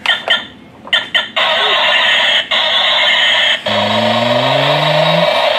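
Battery-operated toy garbage truck's sound module playing its effects through a small speaker. First come four short electronic chirps, then a loud steady hiss, then from about halfway through a recorded engine revving up, rising in pitch again and again.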